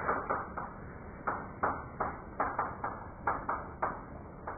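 Chalk writing on a blackboard: a string of short, irregular taps and scrapes, about three a second, as strokes and symbols are written.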